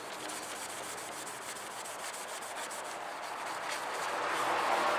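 A headlight-restoration cleaning wipe rubbed back and forth over an oxidized turn-signal lens, scrubbing the oxidation off: a steady scrubbing that grows louder in the second half.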